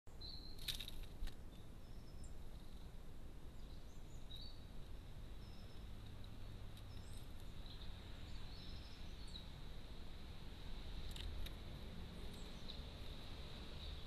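Faint garden ambience with scattered short, high bird chirps over a low rumble and a steady thin high tone. A few sharp clicks stand out, two in the first second or so and two more about eleven seconds in.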